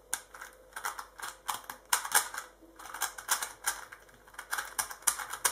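Diansheng Galaxy Kilominx M, a magnetic kilominx (small megaminx-type puzzle), being turned by hand: quick, irregular plastic clicks and clacks, several a second, as its layers are twisted.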